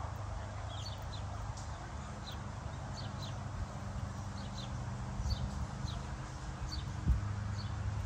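Small songbirds chirping: short, high, sharp notes, about two a second, over a low steady hum. A single dull thud comes about seven seconds in.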